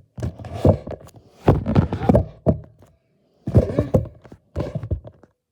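Several short bursts of quick knocks and handling noise as silicone Pop-It fidget toys are handled.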